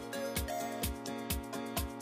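Background music with a steady beat, about two beats a second, over sustained chords.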